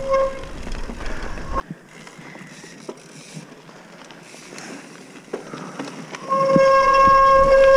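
Hardtail mountain bike rolling over gravel with wind and tyre noise. From about six and a half seconds in, a loud, steady, high-pitched buzz from the bike takes over.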